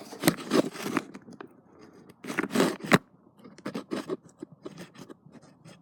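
Handling noise: a string of irregular scrapes, rubs and short clicks, loudest in the first second and again around two and a half to three seconds in.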